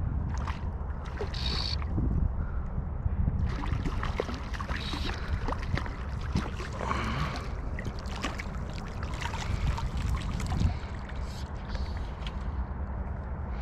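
Water splashing and sloshing in irregular crackly patches, densest through the middle, over a steady low rumble of wind on the microphone.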